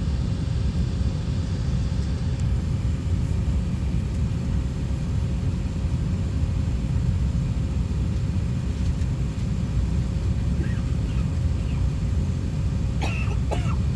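Steady low rumble of an Airbus A380-800 heard from inside the passenger cabin, with a faint steady hum running under it. A few brief faint sounds come near the end.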